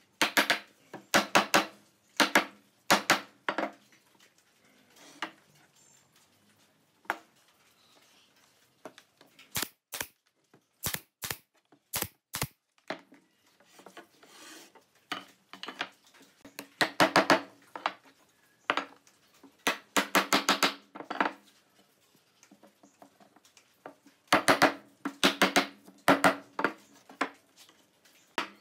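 Pine stool-frame rails clattering and knocking against each other and the wooden workbench as they are handled, in bunches of quick knocks with short quiet pauses between.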